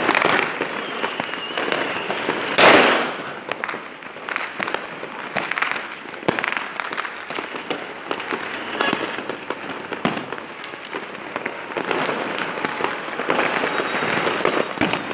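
Many fireworks and firecrackers going off at once in a dense, continuous crackle of pops and bangs, with one much louder blast about two and a half seconds in.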